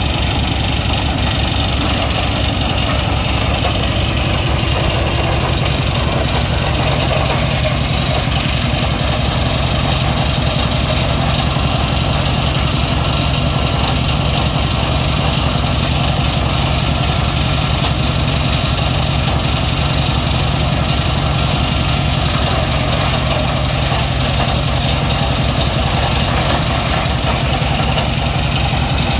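Engine-driven wood grinder running steadily as coconut fronds are fed through and ground into chips and dust. There is a constant low engine beat under the grinding noise.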